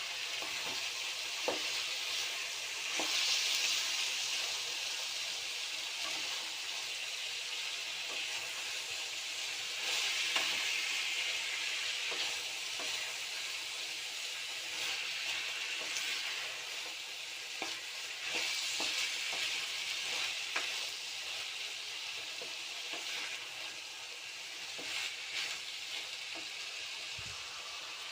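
Ivy gourd sizzling as it fries in hot oil with onion and tomato, stirred in the pan with light clicks of the spoon now and then; the sizzle swells a few times.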